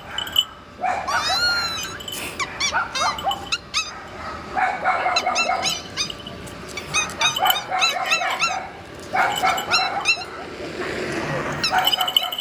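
Repeated high-pitched barking and yelping, several short barks at a time in quick clusters separated by brief pauses.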